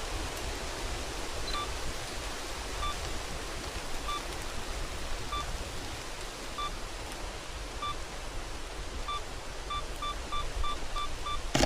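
Camera self-timer beeping about once every second and a half, then beeping fast in the last two seconds of the countdown, ending in the click of the shutter. Steady rain hiss throughout.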